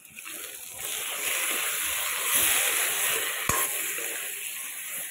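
Fish and potato pieces sizzling in hot oil in a metal wok as they are stirred with a steel ladle, the sizzle swelling about a second in. The ladle clinks once against the wok about three and a half seconds in.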